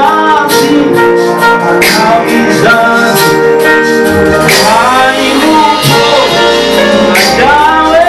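Church praise team singing a worship song, a man leading into a microphone with other voices, over an instrumental backing of sustained chords.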